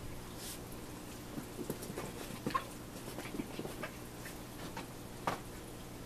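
Aquarium sponge filters bubbling: irregular small pops and gurgles of air bubbles breaking at the water surface over a steady low hum from the air pump.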